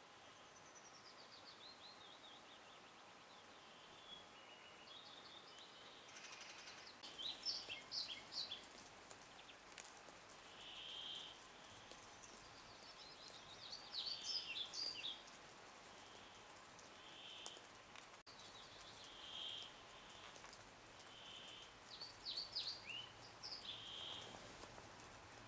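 Wild songbirds singing and calling. A falling cascade of notes opens, then three short warbled phrases follow several seconds apart, with single short whistled notes repeating between them.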